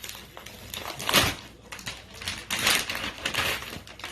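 Packaging being pulled and torn open by hand: an uneven run of scraping, crinkling and tearing noises.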